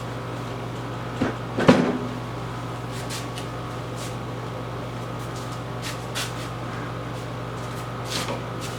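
A few knocks and clunks from a benchtop planer being handled on a wooden flip-top cart, the loudest two close together about a second and a half in, with lighter clicks later. A steady low hum runs underneath.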